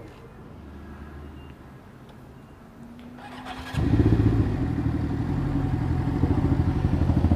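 2014 Honda Grom's 125cc single-cylinder engine being started: a brief starter whir just before four seconds in, then the engine catches and runs loudly with a fast, even beat.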